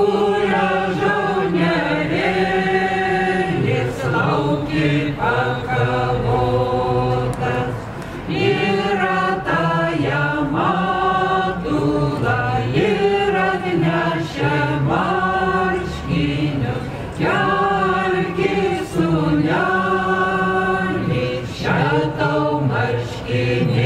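A group of voices singing a folk song together in phrases.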